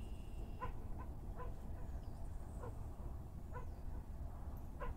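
A dog barking faintly, about six short barks at uneven intervals, over a steady low rumble.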